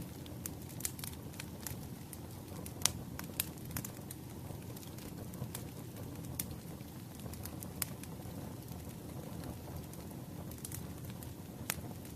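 Wood fire burning briskly, with a steady low rumble of flames and irregular sharp crackles and pops from the burning logs, the loudest pops about three seconds in and near the end.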